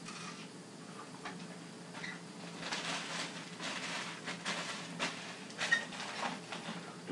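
Rustling and light clattering of things being handled, several in quick succession from about two and a half seconds in, over a steady low hum.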